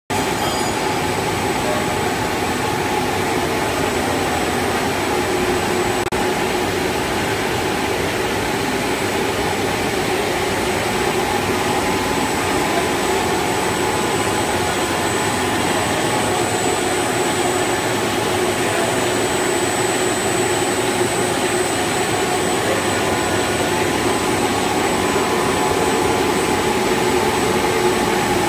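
KS-FE55S twin-head HDPE blown film extrusion line running in production: a steady, loud machine drone of drive motors and blowers, with several steady whining tones over it and no change in pitch or level.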